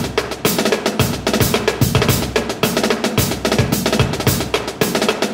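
Background music with a fast, busy drum beat of snare and bass drum.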